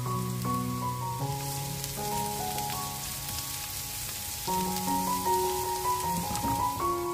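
Diced onions and green bell peppers sizzling in a hot oiled frying pan as they are stirred, a steady hiss. Soft piano background music plays alongside.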